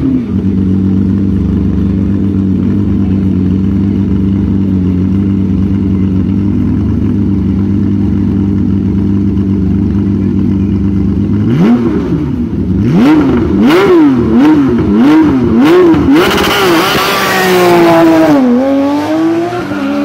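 A Porsche 911 race car's flat-six idles steadily. About twelve seconds in it is blipped in quick rising-and-falling revs, then launches hard with a rush of tyre noise and pulls away, the note rising and dropping at a gear change.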